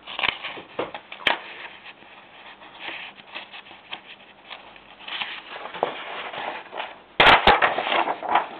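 Paper pages being turned in a ring binder, rustling and catching on the metal rings, with scattered handling clicks. About seven seconds in comes a loud burst of paper rustling with two sharp clacks.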